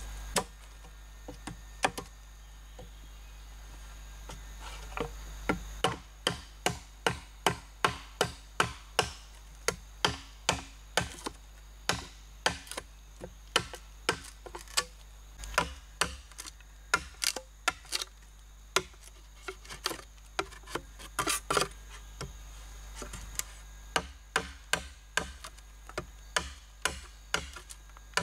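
Machete blade chopping into green bamboo poles: sharp woody knocks, a few scattered at first, then a steady run of about two strikes a second as the poles are notched.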